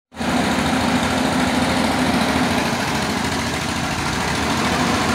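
Diesel engine of a Hyundai 220-9S crawler excavator running steadily as it digs in a riverbed.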